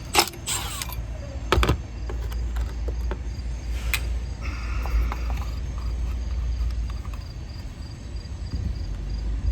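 Hands working on an old heat pump's compressor terminals: a few sharp metal clicks and clinks, the loudest in the first two seconds and another about four seconds in, over a steady low rumble.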